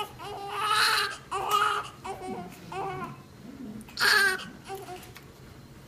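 Newborn baby crying in a series of short, loud wails, the strongest about a second in and about four seconds in, trailing off near the end.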